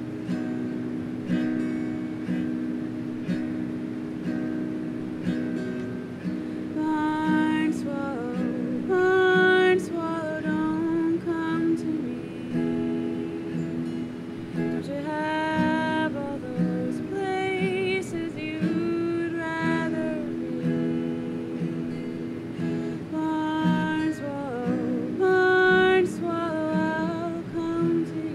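Acoustic guitar playing a slow accompaniment alone for about seven seconds, then a woman's voice comes in singing a slow melody over it in held phrases.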